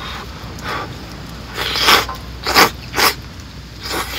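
A person slurping hot curry udon noodles from a bowl: several short slurps about a second apart, the strongest around the middle.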